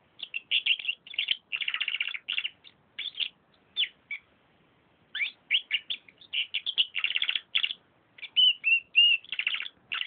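Domestic canary singing: fast trills and chattering phrases, broken by a pause of about a second midway, with a few clear whistled notes near the end.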